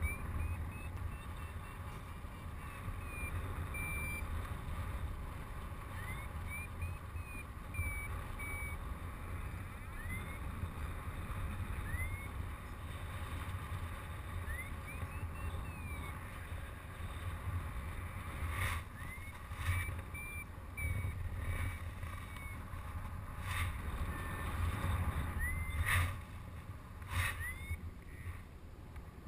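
Paragliding variometer beeping in short chirps and beeps, some sweeping up in pitch, the climb tone of a glider rising in a thermal, over a steady wind rumble on the microphone. A few sharp knocks come in the second half.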